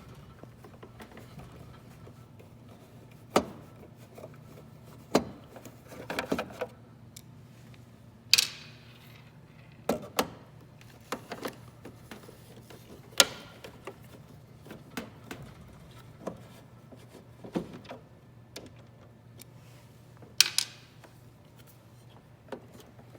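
Irregular sharp clicks and knocks of a screwdriver, screws and the plastic case as the screws are taken out of a Sam4s ER-900 cash register, one every second or two, with a faint steady hum underneath. The loudest knock, about eight seconds in, rings briefly.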